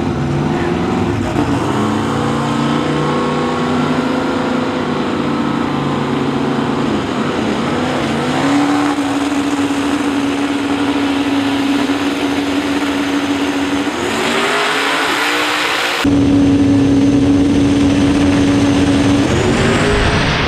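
Drag cars' engines revving at the starting line: several engine notes rise and fall together, then one settles into a steady held rev about eight seconds in, and the note climbs again near the end.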